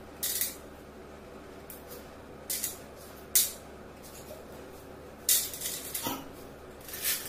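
Metal coins clinking and rattling in a few short bursts as they are handled, stacked and dropped, the loudest about three and a half seconds in, with a longer rattle near the end.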